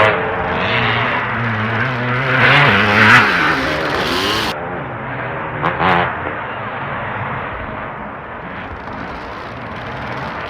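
Several motocross bikes racing, their engines revving with pitch rising and falling as they accelerate and shift. Loudest in the first three seconds with another sharp surge about six seconds in, then quieter, more distant engine noise.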